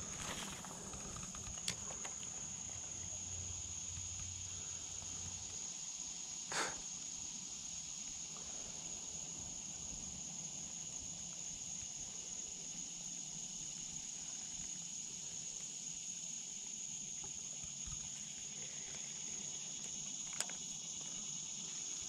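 Insects droning in one steady high-pitched tone, with a few faint clicks and a slightly louder knock about six and a half seconds in.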